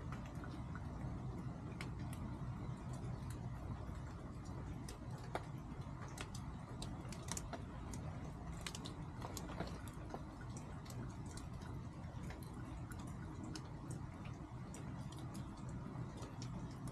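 Chickens pecking and scratching as they feed: many light, irregular clicks and ticks, over a steady low hum.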